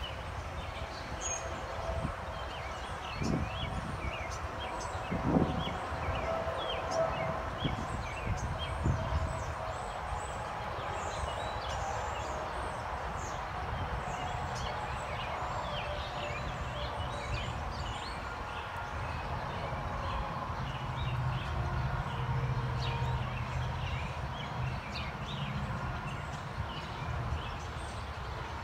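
Outdoor ambience full of short bird chirps and twitters, scattered throughout over a steady low background noise. A few dull thumps come in the first ten seconds.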